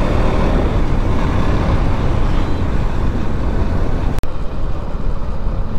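Motorcycle running at road speed in traffic, with its engine and steady wind noise on the camera's microphone, broken by a momentary cutout about four seconds in.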